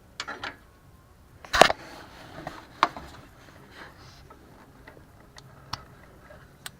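Small clicks and knocks of a car turn signal bulb and its plastic socket being handled. The loudest is a single knock about one and a half seconds in, followed by a sharp click a second later and a few faint ticks.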